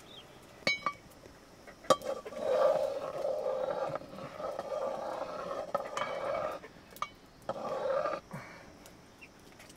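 Wooden ladle stirring and scraping inside a metal cooking pot of rice. A couple of sharp metallic clinks come first, the loudest about two seconds in. Then comes a rough, ringing scrape for about four seconds, and another short scrape near the end.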